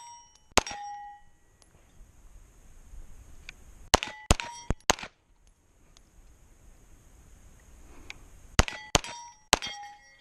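Kriss Vector 9mm delayed-blowback pistol firing: a single shot, then a quick string of about four, then three or four more near the end. Each shot is followed by a short metallic ring of steel targets being hit.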